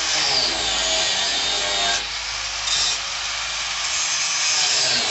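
Handheld angle grinder running under load as it grinds and cuts along the edge of an old rusted lid. Its whine drops in pitch twice as the disc is pressed into the work.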